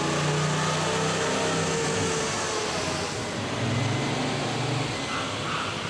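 Honda Africa Twin's parallel-twin engine running on a chassis dynamometer during its first end-of-line test, its note shifting in pitch as it is worked through the test.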